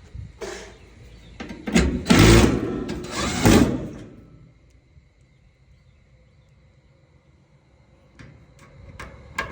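Sheet-metal dryer cabinet panel being slid and scraped into place, in two loud scraping pushes over the first four seconds, followed by a few light clicks near the end.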